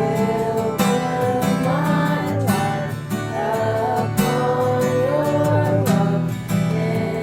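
Worship music, instrumental passage: acoustic guitar with a gliding melody line over a steady repeating accompaniment.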